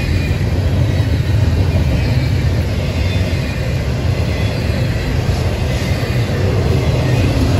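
Norfolk Southern double-stack intermodal train's container well cars rolling past, a steady heavy rumble of steel wheels on rail.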